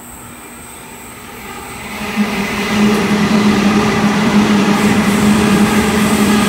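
Sydney Trains double-deck electric train approaching and running through the station at speed. The sound builds from about a second and a half in to a loud, steady passing rush, with a low steady hum under it.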